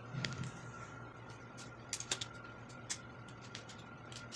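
Small, scattered plastic clicks and taps from a blood-glucose lancing pen being handled and set up, its cap and lancet being fitted.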